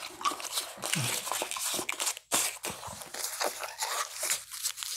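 Plastic wrapper of a Charms Blow Pop lollipop crinkling and tearing as it is pulled off by hand, in a run of short, crackly rustles.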